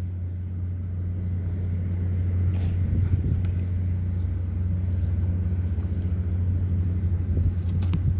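Steady low mechanical hum of a running engine or motor, holding one pitch, with a few light clicks near the end.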